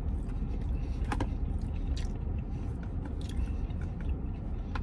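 A man chewing a mouthful of breaded plant-based chicken finger, with a few short wet mouth clicks, over a low steady rumble.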